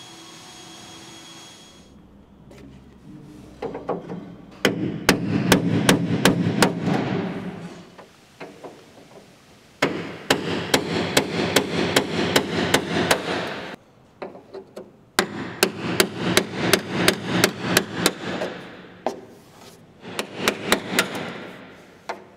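A hammer taps quickly on the BMW 507's aluminium body panel, in several runs of strikes at about four a second with short pauses between.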